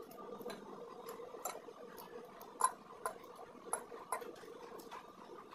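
Metal spoon and fork clicking and scraping against a ceramic plate, short clicks of varying loudness about twice a second, over a faint steady hum.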